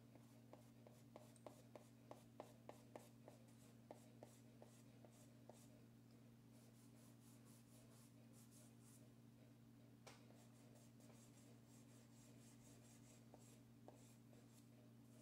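Faint strokes and rubbing of chalk pastel and fingertips on paper as the pastel is blended. A run of quick short strokes, about three a second, comes first, then softer scratchy rubbing with a single click about ten seconds in, over a steady low hum.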